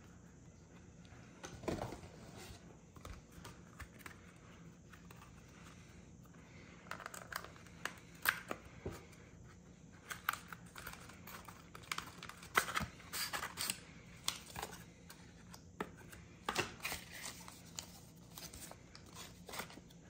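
Pokémon card-pack wrapper being torn open and crinkled by hand, with the cards inside handled: irregular small crackles and rustles that come in several spells.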